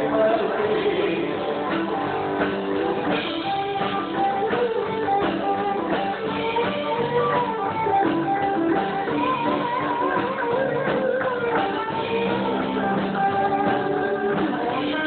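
Live rock band playing, led by guitar, with a steady beat underneath.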